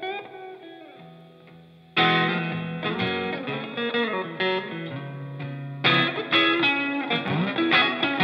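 Background music laid over the footage. The notes die away to a lull early on, the music comes back in strongly about two seconds in, and it swells again near six seconds.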